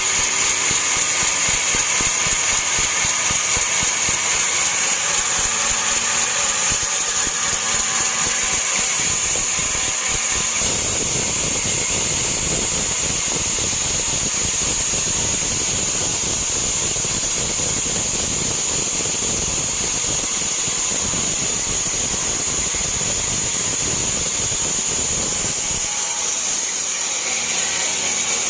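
Band sawmill running steadily while cutting a large teak log, with a constant high hiss. About ten seconds in the sound grows fuller and heavier, and it thins again near the end.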